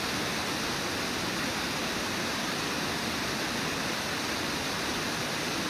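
Brooks Falls, a wide low river waterfall, rushing steadily: an even, unbroken wash of falling white water.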